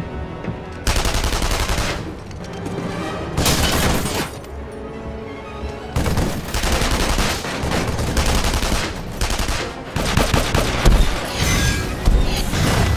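Film sound effects of automatic gunfire, in several long bursts of rapid shots.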